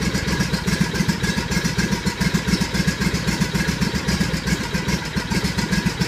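Riding lawnmower's small engine running just after a cold start in about 10-degree cold, with a rapid, uneven pulsing beat. It is still on choke and running lean, and won't take any throttle yet.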